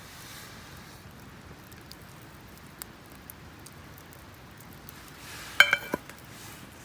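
A quick run of metallic clinks with a brief ring, about five and a half seconds in, like metal cooking gear being knocked together. A few faint small ticks are scattered through the rest.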